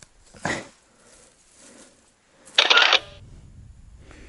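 Cut willow branches and brush rustling and crackling as they are handled, with a short loud rustling burst about two and a half seconds in.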